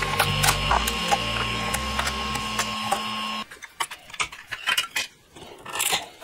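Prusa i3 MK2 3D printer's stepper motors running, a steady whine with tones that shift every half second or so, cutting off about three and a half seconds in. Then scattered clicks and knocks of finished black plastic prints being handled and pulled off the printer bed.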